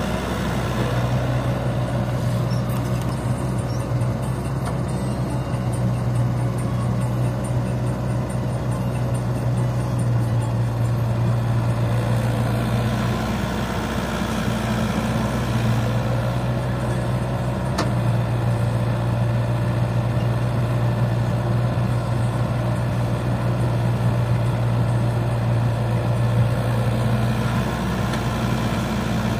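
Heavy diesel engines of an excavator and a dump truck running steadily during loading, with a strong low hum whose note shifts a little now and then. A single sharp click comes about eighteen seconds in.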